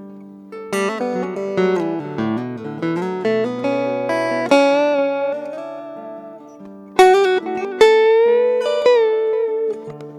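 Guitar playing an instrumental break in a slow song: single picked notes and short runs, with a few bent notes about seven to nine seconds in.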